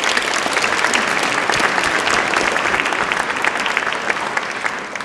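Audience applauding: many hands clapping in a dense, even patter that begins to fade near the end.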